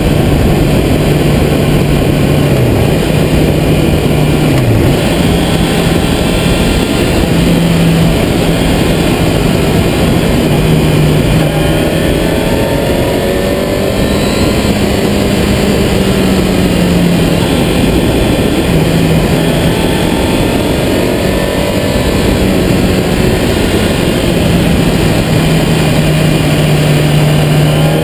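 Sport motorcycle engine running at cruising revs under heavy wind and road noise. The note dips twice in the first few seconds and rises near the end as the bike accelerates.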